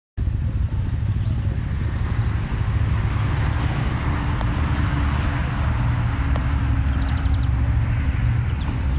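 Quad bike (ATV) engines idling together, a steady low rumble.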